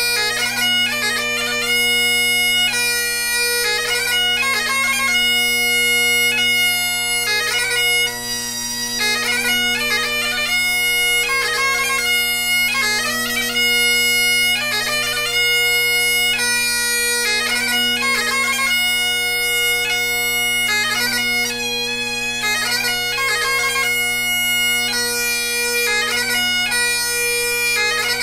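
Great Highland bagpipe playing a slow piobaireachd: the drones sound steadily beneath the chanter's melody of held notes, broken by quick gracenote flourishes between them.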